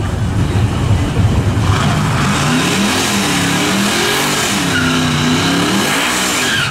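Modified Chevy pickup truck engines revving, the pitch climbing and falling several times over a steady low rumble. A loud rushing hiss joins about two seconds in and cuts off near the end.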